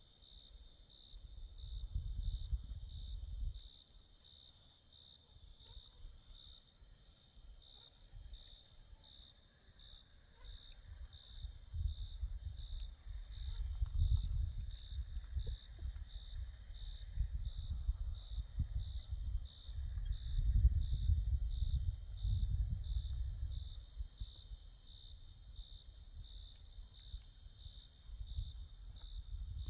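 Night insects, crickets among them, chirping steadily in several high-pitched layers, one pulsing a little over once a second and another trilling fast. Low rumbles come and go underneath, loudest about midway.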